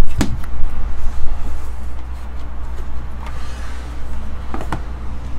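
Cardboard trading-card hobby box being handled and opened, its flaps and inner box rubbing and knocking, with a couple of short sharp knocks, over a steady low hum.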